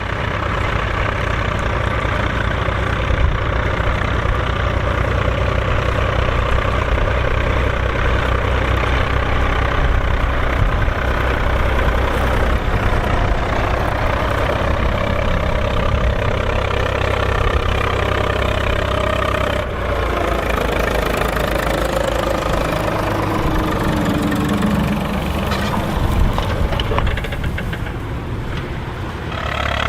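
Volvo BM farm tractor's diesel engine running steadily under load while ploughing. About two-thirds of the way through the engine note changes, and a lower note rises and falls.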